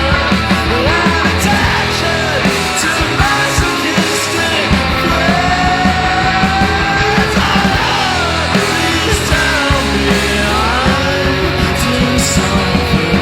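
Loud punk-rock band music: distorted guitars, bass and drums with a steady beat, and a voice singing or yelling over it.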